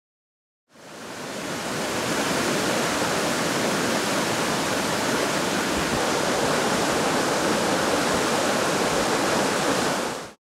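Floodwater from the overflowing Whetstone Brook rushing steadily. It fades in under a second in, after a short silence, and cuts off just before the end.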